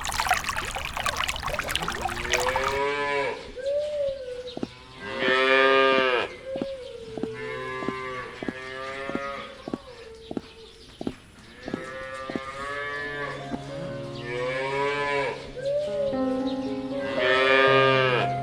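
Cattle mooing, about six drawn-out calls one after another. A broad rushing noise fills the first couple of seconds, and a few light clicks fall between the calls.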